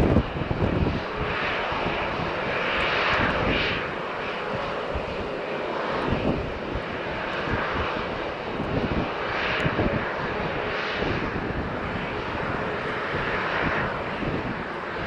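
Jet engine noise from a Boeing 737-700 BBJ's CFM56-7 turbofans: a steady rush with low rumble that swells and fades a little.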